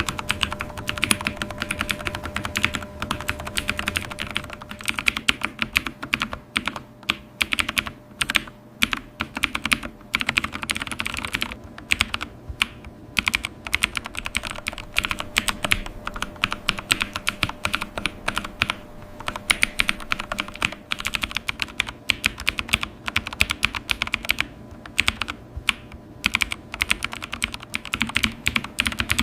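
Computer keyboard being typed on steadily: fast, irregular key clicks with a few brief pauses, over a faint steady hum.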